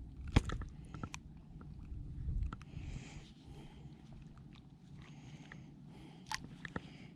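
Scattered small clicks and knocks, with a brief low rumble about two seconds in: handling sounds in a kayak.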